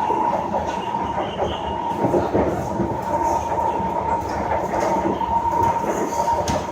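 SMRT C151 metro train running between stations, heard from inside the car: a steady rumble and wheel clatter on the rails, with a steady high whine held at one pitch.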